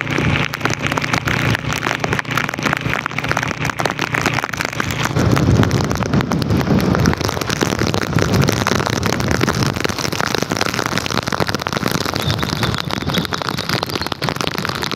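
Heavy rain pattering densely, with wind on the microphone and the low rumble of a moving vehicle, which grows louder about five to seven seconds in.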